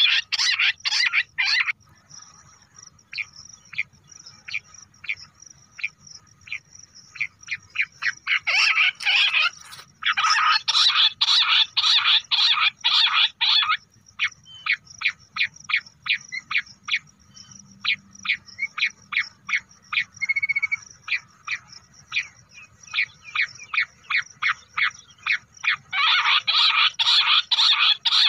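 Bush quail calls played back as a hunting lure: rapid trains of short, sharp notes, loud and dense at the start, again from about a third of the way in, and near the end, with sparser, evenly spaced notes in between.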